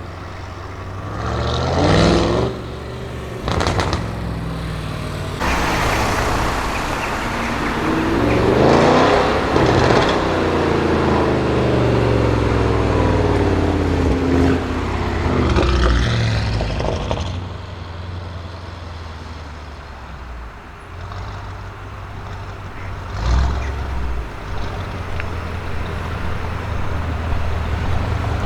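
Audi RS6 Avant C7's twin-turbo V8 through a Milltek exhaust: a short rev about two seconds in, followed by a quick burst of crackles. Then comes a long, loud pull of about ten seconds that rises in pitch and falls away, and another short rev near the end. A low steady engine drone runs underneath.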